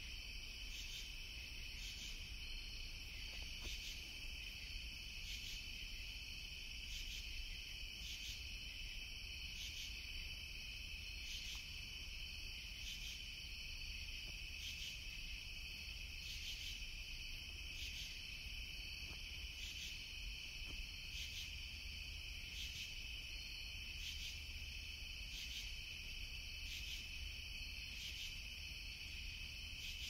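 Crickets chirping in a steady, continuous high trill, with a faint regular pulse about once a second, over a low steady rumble.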